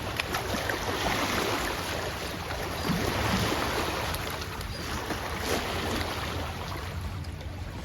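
Steady outdoor rushing noise of wind and water at a lakeshore, a little stronger in the first half, with a few faint knocks.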